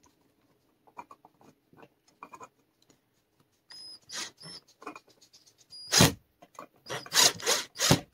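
Cordless drill/driver driving a screw into a ceiling electrical box to fix a light-fixture mounting bracket. It runs in short stop-start bursts, several with a thin high motor whine, after a couple of seconds of light clicks. The loudest bursts come in the last two seconds or so.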